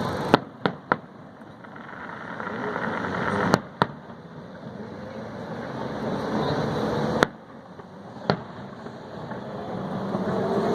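Fireworks shells bursting in a series of sharp bangs: three within the first second, two close together about three and a half seconds in, one about seven seconds in and one near eight seconds, over a constant background noise.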